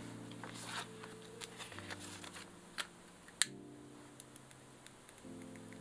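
Soft background music of sustained chords that change every couple of seconds. Under it, small clicks and taps as a Deco Rush decorative tape roller is handled, with the sharpest click about three and a half seconds in.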